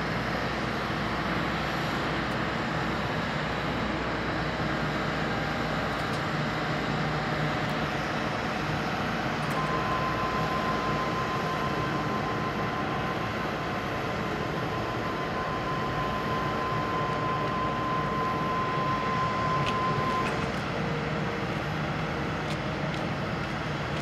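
Steady aircraft noise from a Boeing 787-8 airliner during pushback by a tow tug. A steady high whine runs through the middle for about ten seconds, then stops.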